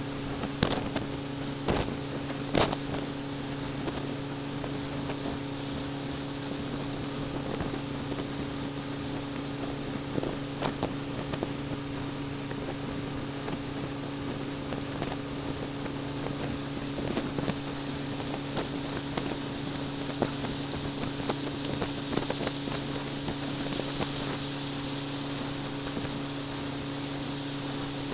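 Small ferry boat's engine running steadily with an even hum, and scattered sharp knocks, most of them in the first few seconds.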